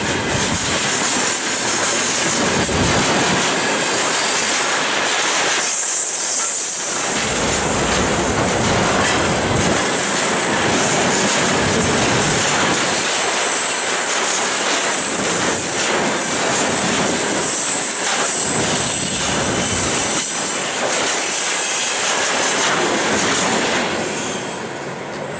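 Loaded freight wagons, gondolas then tank cars, rolling past at speed: a dense rumble and clatter of wheels over the rail joints, with a thin high steady tone from the wheels through the middle. Near the end the sound falls away as the last wagon passes.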